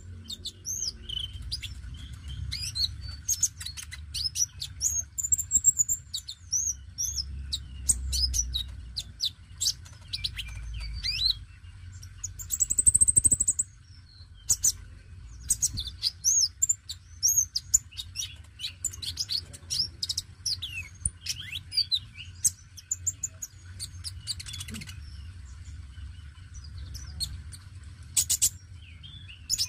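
Caged male sunbird (konin) singing in a busy run of rapid high chirps and short whistles that slide up and down, with sharp clicking notes mixed in. A louder arched whistle comes about 13 seconds in.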